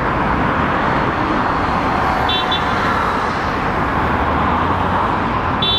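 Road traffic noise: a steady rush of passing vehicles, with a short high double beep about two seconds in and another high beep starting near the end.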